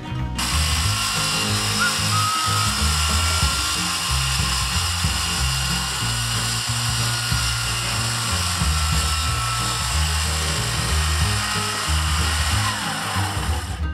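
Handheld electric circular saw running steadily as it cuts through a thick wooden keel timber, its whine falling away near the end. Background music plays underneath.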